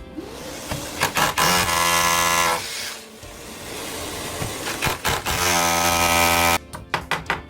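A motor-driven power tool running at a steady pitch in two bursts of about a second each, with short clicks before and after, over background music.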